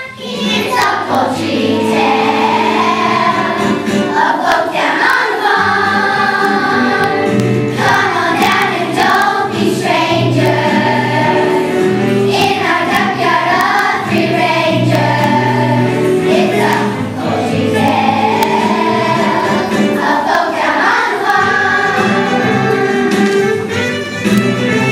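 A children's choir singing a show tune in phrases, several voices together, over steady instrumental accompaniment.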